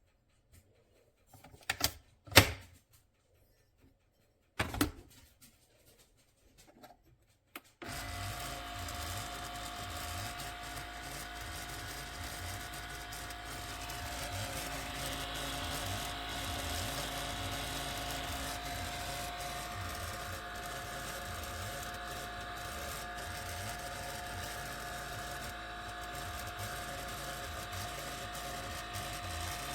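A few sharp clicks, then about eight seconds in a Keurig K-Iced single-serve K-Cup coffee maker starts up and runs with a steady mechanical hum.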